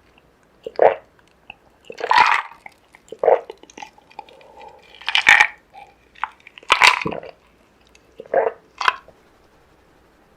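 Close-miked seafood eating: wet chewing and crunchy bites in about seven separate short bursts a second or so apart, stopping about nine seconds in.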